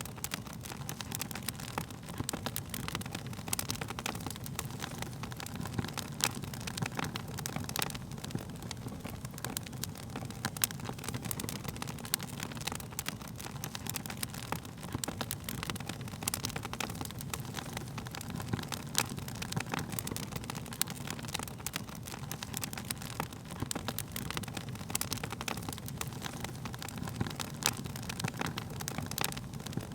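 Burning wood fire crackling, with frequent sharp pops and snaps over a steady low rumble of the flames.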